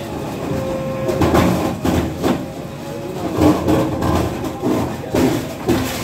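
JCB backhoe loader's diesel engine running steadily while its backhoe arm breaks down a brick wall, with about seven irregular knocks and crashes of brick and masonry being struck and falling.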